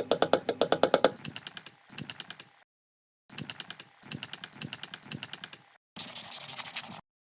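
Rapid, evenly spaced mechanical tapping, about nine strikes a second, from a woodworking tool, in several short stretches that cut off abruptly. It is followed about six seconds in by a second of steady hiss.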